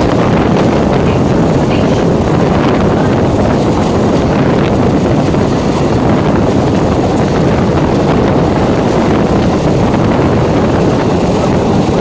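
Electric multiple unit (EMU) suburban train running at speed, heard from on board: a loud, steady rumble of wheels and track with wind noise on the microphone.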